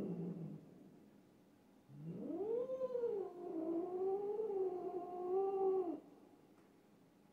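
Cat yowling. One call trails off just after the start, then a long yowl of about four seconds rises and wavers before cutting off. This is the drawn-out caterwaul of a territorial standoff between two cats.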